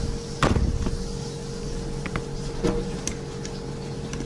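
One sharp metallic knock about half a second in, then a few light clicks, as the stainless-steel control housing of a deep fryer is handled and pressed together. A steady electrical hum runs underneath.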